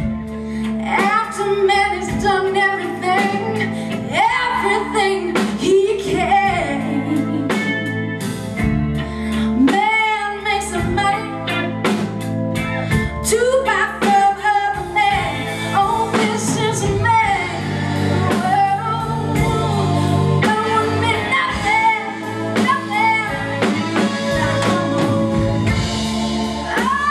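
Live band music: a woman sings lead over electric guitar and drum kit.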